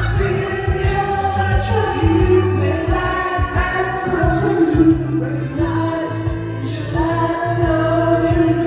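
Music with singing: long held vocal notes over a steady bass beat.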